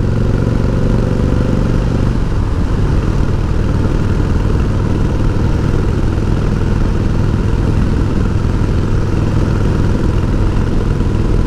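Harley-Davidson Heritage Softail's Evolution V-twin engine running steadily while the sidecar outfit is ridden, its note shifting about two seconds in.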